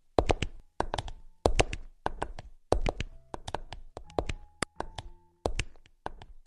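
Sparse, percussive electronic runway music: tight clusters of sharp clicks about every half-second, with short held synth tones and near-silent gaps between the hits.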